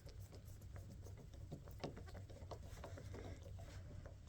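Faint, irregular light clicks and taps of a hand tool tightening the brake lever's pivot bolt into its lock nut.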